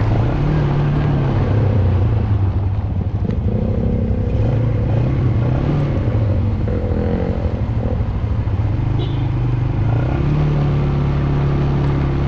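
Quad ATV engine running steadily, its pitch rising a little now and then.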